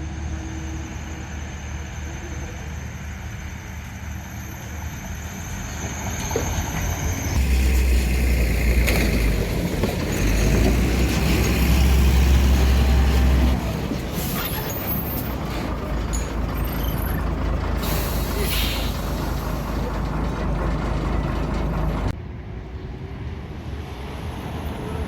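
A motor vehicle running on the road, a steady low engine rumble with road noise, changing abruptly about seven seconds in and again near the end where one clip cuts to the next.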